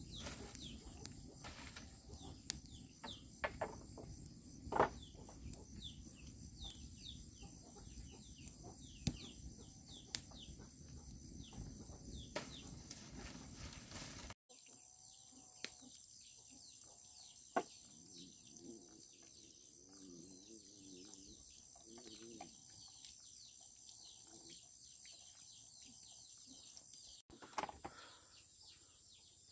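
Chickens clucking faintly over a steady high-pitched drone, with scattered sharp clicks and knocks in the first half.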